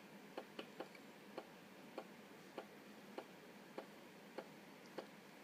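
Floppy disk drive ticking quietly and regularly, about one click every 0.6 s, as it reads a boot diskette.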